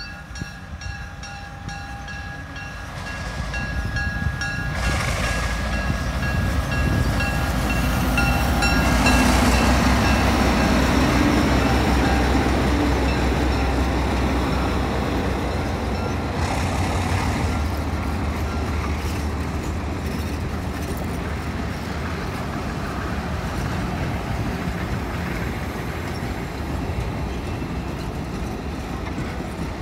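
Diesel locomotive approaching and passing, loudest about ten seconds in. After it, a long string of passenger cars rolls past with a steady rumble of wheels on rail.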